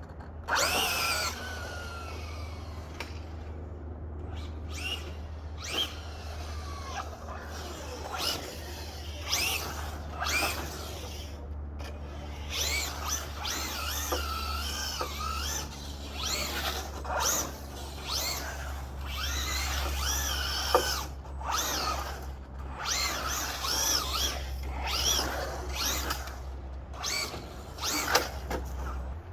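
Traxxas Drag Slash RC truck's Velineon brushless motor whining up and down in pitch with repeated bursts of throttle, over a steady low hum.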